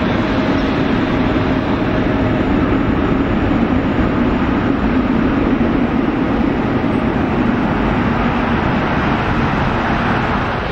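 Boeing 777 freighter's twin GE90 turbofan engines running as it rolls slowly on the runway: a steady, loud jet-engine rush with a low hum underneath.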